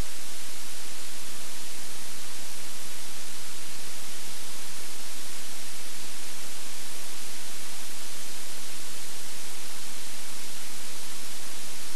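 Steady, loud hiss of recording noise with a faint low hum underneath, unchanging throughout; no other sound comes through.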